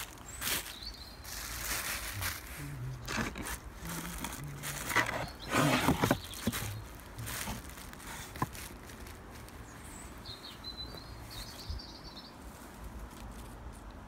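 Plastic bubble wrap rustling and crinkling as it is handled and tucked over a compost bed, with scrapes and clicks, loudest about halfway through, and a single sharp knock a little later. Near the end a small bird chirps a few times in the background.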